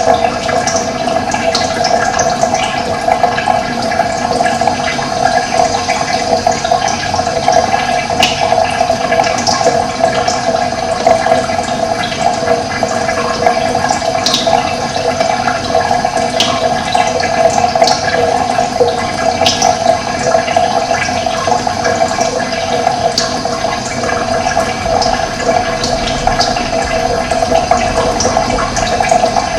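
Running water, a steady, even rush of flowing water.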